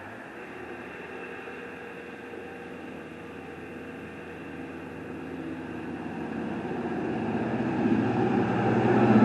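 Heavy vehicle's engine running, growing steadily louder over the last few seconds as it comes closer.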